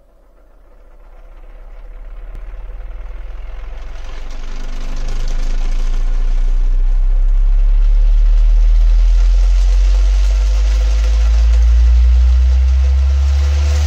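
Sixth-order bandpass subwoofer playing a deep, steady bass tone that swells up from silence over the first few seconds and then stays loud, with a second, higher bass note growing in about ten seconds in and a hiss rising along with it.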